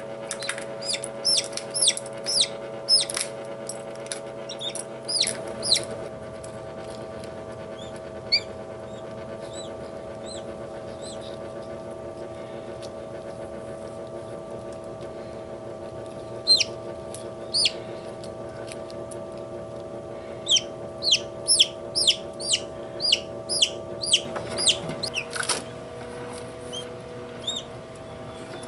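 Newly hatched poultry chicks peeping in quick, high, falling chirps, in clusters near the start and again through the second half, over the steady hum of an egg incubator.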